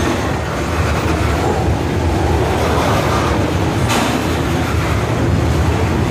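Freight train of covered hopper cars rolling past close by, steel wheels rumbling steadily on the rails, with a sharp clack about four seconds in.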